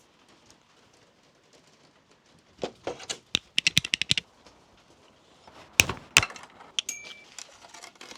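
Sharp metallic clicks and clacks from hands and tools working a bicycle chain. A quick rattling run of clicks comes about a third of the way in, and two loud knocks come about three quarters through.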